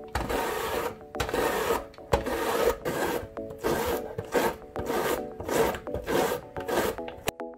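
A zucchini rubbed back and forth over the blades of a plastic julienne slicer, a rasping scrape on each stroke as it is cut into noodle strands. About a dozen strokes at a steady pace, stopping near the end.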